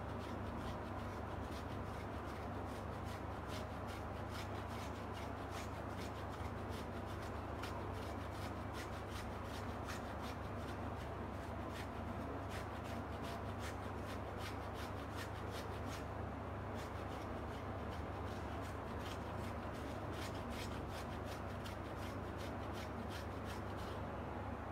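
A block of cheese grated on a small flat handheld metal grater: quick, regular rasping strokes, several a second, one after another.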